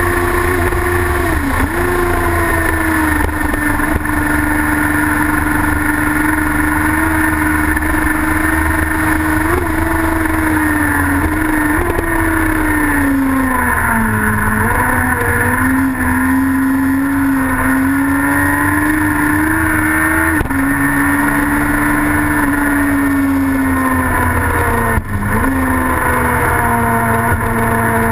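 Racing sidecar outfit's engine at race speed, heard onboard. It holds a high, steady pitch that dips sharply and briefly several times and runs lower for a stretch about halfway through, as the driver shifts and eases off for corners.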